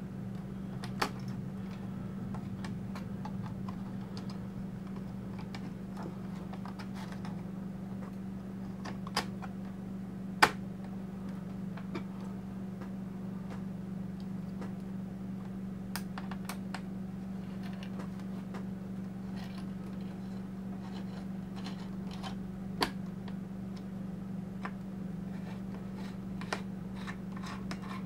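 Scattered sharp clicks and taps from hands handling the opened laptop's plastic and metal parts during reassembly, the loudest about ten seconds in, over a steady low hum.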